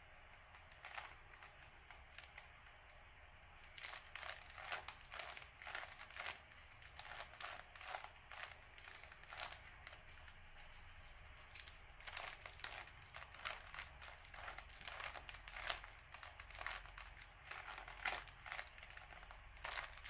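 Plastic Rubik's Cube being turned by hand during a solve: quick, irregular clicks and rattles of its layers twisting. The clicks are few in the first few seconds, then come in rapid runs.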